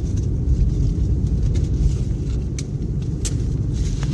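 Steady low rumble of engine and tyres heard from inside a moving car's cabin, with a few short ticks about a second apart in the second half.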